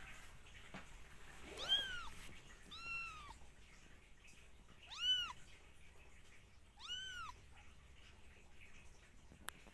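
A two-week-old kitten mewing four times, short high-pitched cries that rise and fall in pitch, a second or two apart. A single sharp click comes near the end.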